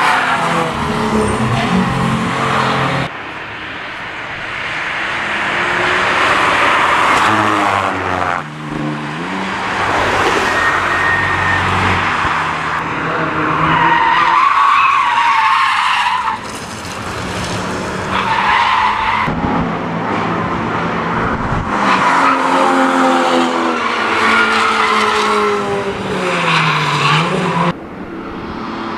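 Cars driven hard past on a race track, one after another: engine notes rising and falling as they accelerate and lift, with tires squealing through the corners. The sound changes abruptly several times as one pass gives way to the next.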